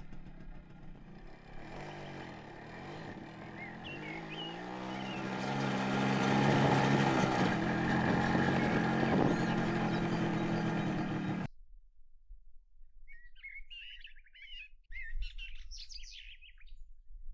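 Motorcycle engine running as the bike rides up the road, getting louder as it comes closer, then cut off suddenly about two-thirds of the way through. Birds chirp for the last few seconds.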